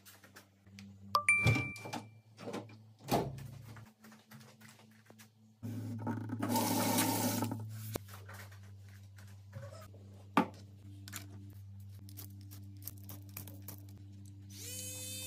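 A short ding about a second in and a few sharp knocks, then water running from a kitchen sink tap for about two seconds, over a steady low hum.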